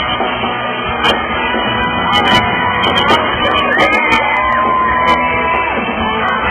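A live pop-rock band playing loudly, with fans screaming and singing along close by. One long high note is held about four seconds in.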